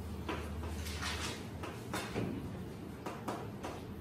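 Chalk writing on a chalkboard: a quick, irregular series of short scratchy strokes and taps as letters are written.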